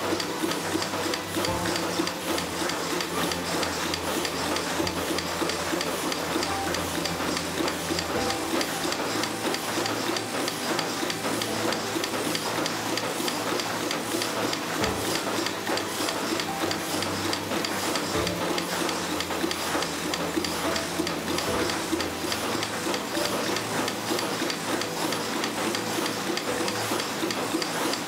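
Thread rolling machine running steadily with a fast, even repetitive rhythm as it rolls the spiral threads onto screw blanks.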